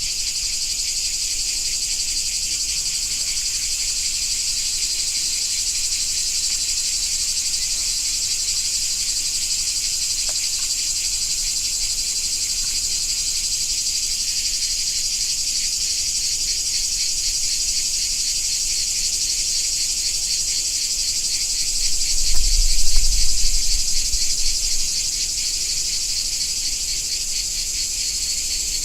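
A summer insect chorus: a steady, high-pitched, finely pulsing buzz with no break. A low rumble swells briefly about two-thirds of the way through.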